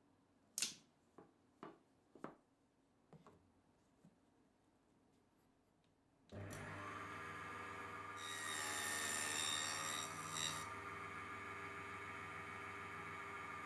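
A few light clacks of thin wooden strips knocking together and against a wooden bench, then a small benchtop table saw switches on about six seconds in and runs with a steady hum and whine. For a couple of seconds in the middle it gets louder and higher as the blade cuts through a wooden strip on a crosscut sled.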